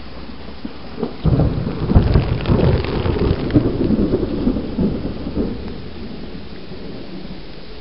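Thunder cracks about a second in and rumbles for about four seconds over steady rain.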